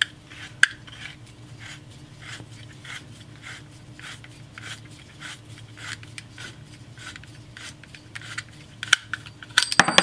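Copper pipe being cut with an auto-tightening tubing cutter turned around it by hand: the cutting wheel scores the pipe with soft rhythmic scrapes about three times a second. Near the end come louder metallic clinks as the cut length of copper pipe breaks off and is handled.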